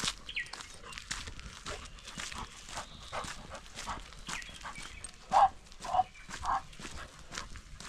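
A dog barks three times in quick succession, about five seconds in, over a constant patter of small crackles and clicks.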